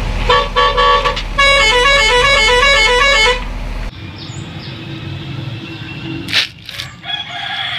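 Indonesian 'telolet' bus horn: a few short toots, then a quick multi-note tune, cutting off about three and a half seconds in. After that comes quieter background noise with a single knock.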